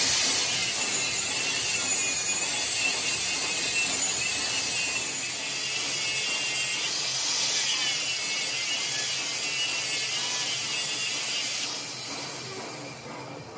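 Angle grinder with a thin disc grinding the broken steel shaft end of an air-compressor screw rotor: a steady high whine with a hiss of grinding, its pitch wavering as the disc bites. It starts suddenly and stops about twelve seconds in.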